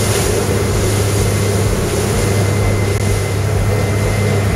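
Boat engines running steadily at speed, a low drone under the rush of wind and churning water from the wake.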